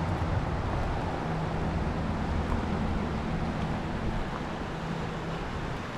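Steady rushing of a mountain creek, with a low engine hum from nearby traffic underneath that fades out about five seconds in.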